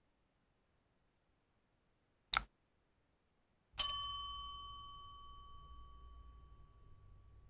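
Sound effects of a subscribe-button animation: a single mouse click, then about a second and a half later a bright notification-bell ding that rings on and fades slowly.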